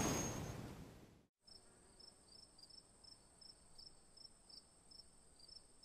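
The logo sting's sound fades out over the first second and drops to a brief silence; then faint cricket chirping, about three chirps a second over a steady high-pitched tone.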